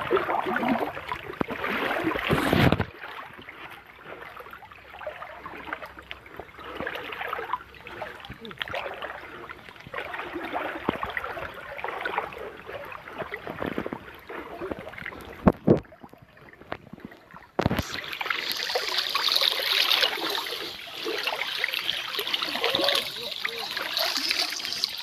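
Muddy creek water sloshing and splashing as someone wades through it. The sound changes abruptly about three seconds in and again a little past the middle, with a couple of brief knocks shortly before the second change.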